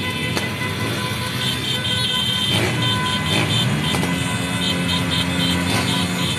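Several motorcycle engines running together in a busy street. About four seconds in, one engine revs up and holds its higher note. Two short runs of rapid high-pitched chirping beeps sound over the engines.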